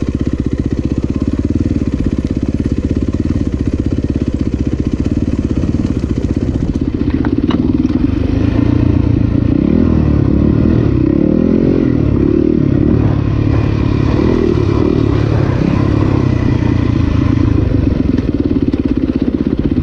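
2019 Yamaha YZ250FX dirt bike's single-cylinder four-stroke engine running as it is ridden along a dirt trail, steady at first, then louder from about eight seconds in with the revs rising and falling.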